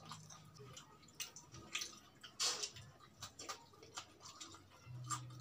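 Wet chewing, lip-smacking and finger-licking while fried chicken is eaten by hand: scattered irregular clicks and squelches, the loudest about two and a half seconds in.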